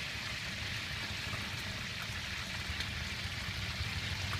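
Steady sizzling hiss with scattered light crackles from whole fish grilling on a wire rack over charcoal, over a low rumble.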